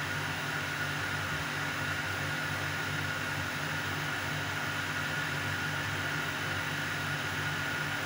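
Steady hum and hiss with a faint high whine, with no change in level and no birdsong or other distinct events.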